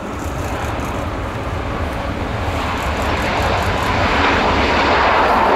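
Boeing 737's CFM56-7B jet engines roaring during the landing roll after touchdown, the roar growing steadily louder.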